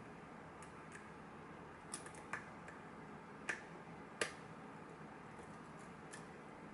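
Lock picking tools clicking in a lock as it is picked: a few faint ticks, then four sharp clicks from about two to four and a half seconds in, the last the loudest.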